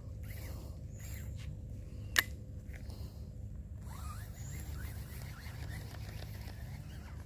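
A single sharp click about two seconds in, over a steady low rumble with faint scattered ticks.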